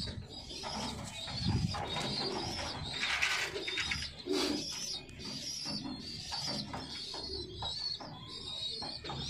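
Domestic pigeons cooing, low repeated coos, over steady high chirping.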